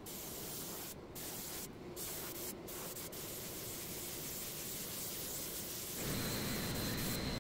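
Compressed-air spray gun hissing steadily as it sprays shellac sealer onto V-carved MDF. The hiss dips briefly three times in the first few seconds, and for the last second or so it is louder, with a thin high whistle.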